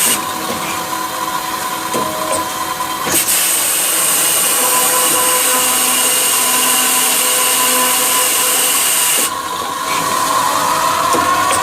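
Metal-cutting machine running and cutting through a solid steel bar, with a steady loud whine and hiss. The hiss thins for a couple of seconds near the end, when a rising tone comes in.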